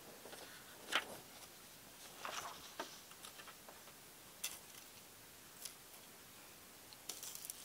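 Faint scattered clicks and rustles of electronic components and paper being handled on a workbench, with a short scratchy cluster near the end.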